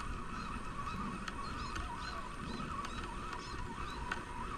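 Birds calling around the water: short chirps repeating several times a second over a continuous chatter of calls.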